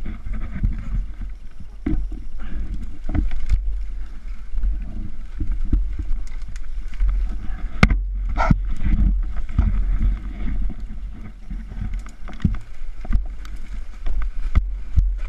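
Muffled low rumble on a helmet-mounted camera, with scattered knocks and scrapes from a fallen enduro dirt bike being wrestled on a steep bank. One sharp knock comes about eight seconds in.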